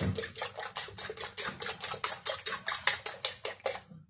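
Fork beating eggs in a ceramic bowl, clicking against the bowl about seven times a second, then stopping just before the end.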